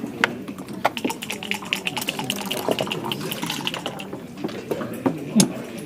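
Backgammon dice rattling in a cup for about three seconds, starting about a second in, among sharp clicks of checkers and dice on the board.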